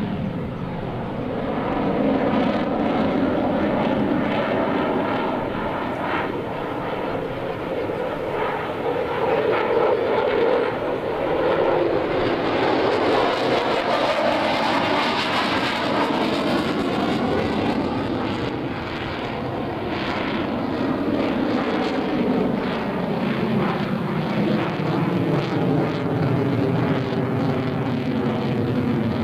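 F-16 Fighting Falcon jet flying a display pass, its single jet engine running loud and continuous. The pitch glides up and down as the aircraft manoeuvres, and it is loudest around the middle.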